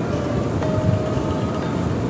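Background music with held notes over a steady low rumble.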